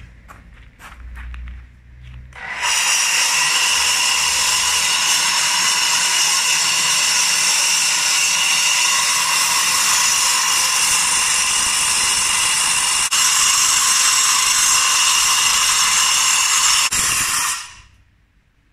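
Angle grinder cutting through a reinforced concrete slab: a loud, steady, high-pitched grinding that starts a couple of seconds in and cuts off near the end as the grinder is switched off and winds down. Its toughness comes from cutting through the steel reinforcing in the concrete.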